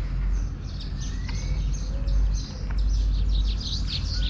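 Several small birds chirping at once, many short overlapping calls with one longer rising whistled note about a second in, over a steady low rumble.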